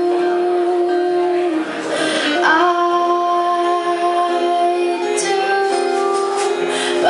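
A woman singing with guitar accompaniment: long held notes, the second one sliding up into pitch about two and a half seconds in.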